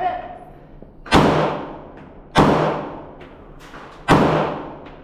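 Three pistol shots about a second and a half apart, fired from inside a steel shipping container, each with a long echoing tail.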